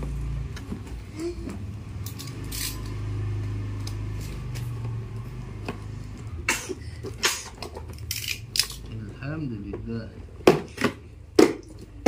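Cardboard boxes being handled and opened, with sharp clicks and scrapes as a tool slits the packing tape, several in the second half, over a low steady hum.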